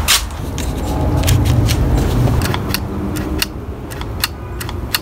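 Scattered light clicks and small rattles of hands handling the string trimmer's plastic housing, over a low steady rumble.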